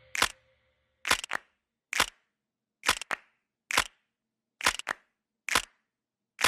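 Camera shutter clicks used as a sound effect: about one a second, every other one a quick double click, with near silence between.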